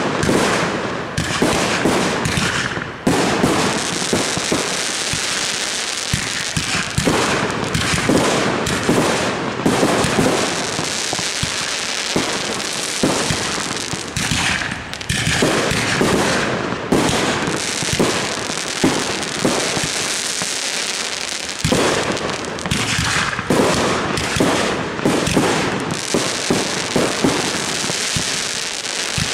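Aerial fireworks display: shells bursting overhead in a dense, continuous barrage of bangs and crackling, with no break.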